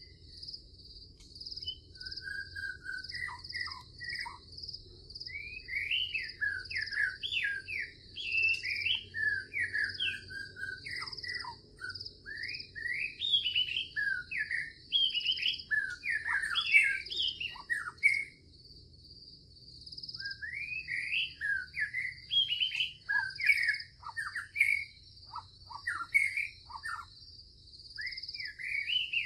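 Songbirds chirping and twittering in quick runs of short rising and falling notes, over a continuous high-pitched trill like insects. The birdsong pauses for a couple of seconds a little past the middle.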